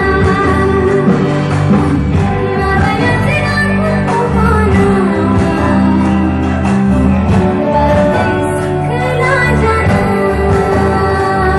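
A girl singing a Bodo song into a microphone over amplified backing music with a steady bass line, played through stage loudspeakers.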